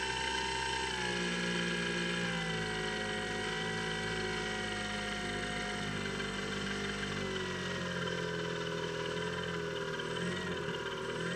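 Electric pusher motor and propeller of a Skywalker X7 flying wing in flight, a steady whine whose pitch slowly drops, then wavers up and down near the end.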